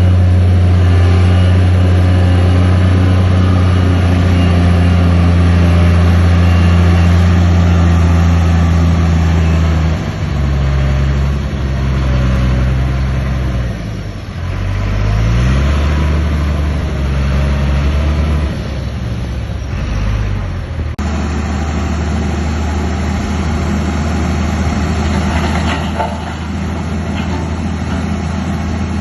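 Heavy earthmoving machine's diesel engine running loud and steady. Its note shifts about a third of the way in and briefly rises in pitch near the middle, then the sound changes abruptly.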